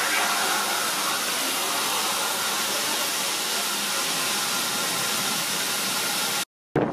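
Steam locomotive letting off steam around its cylinders, a loud, steady hiss that cuts off suddenly near the end.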